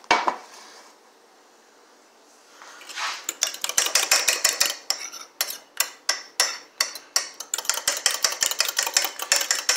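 A metal pan set down on the stove with one clank. About three seconds later a fork starts beating eggs in a ceramic mug: fast, steady clinking of metal against the mug.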